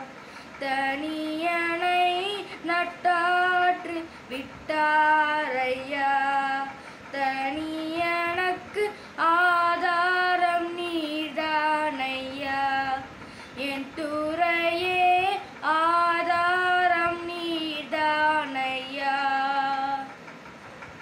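A boy's high, unbroken voice singing a Tamil Christian song solo, with no accompaniment heard. He sings in short phrases with brief breaths between them.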